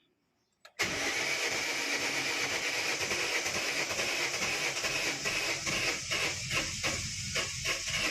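Hyundai Accent engine cranking on its starter without catching, starting abruptly about a second in, with a regular pulsing in the later seconds: the car will not start after sitting unused for several days.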